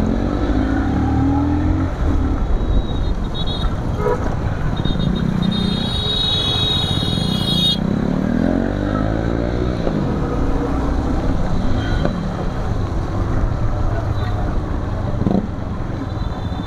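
Motorcycle engine running and revving up and down as it rides through traffic on a wet road, over steady road and wind noise. A vehicle horn sounds for about two seconds, about six seconds in.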